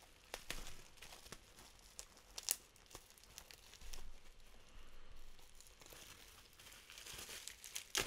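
Packaging being unwrapped by hand: crinkling and tearing of wrapping material, with a few sharp crackles and a busier stretch of rustling near the end.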